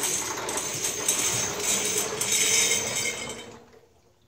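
Once-fired .38 Special brass cartridge cases poured in a stream into a wet-tumbler drum partly filled with water: a continuous metallic clinking and rattling that tails off about three and a half seconds in.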